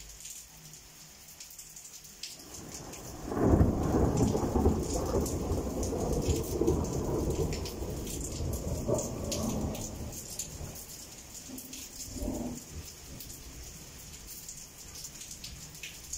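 Thunder over steady rain. A rumble builds, breaks loud a moment later and rolls on for several seconds as it fades, with a short second rumble later on; raindrops keep up a steady patter throughout.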